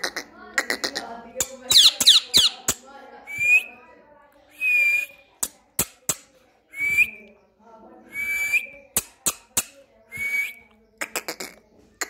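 Indian ringneck parrot calling in short whistled notes, roughly one every second and a half, after a burst of high chattering calls about two seconds in, with sharp clicks scattered between.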